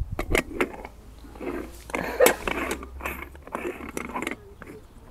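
Handling of coffee-making gear: a few quick clicks, then stretches of scraping and rattling, as a coffee tin and a stovetop moka pot are worked while the coffee is prepared.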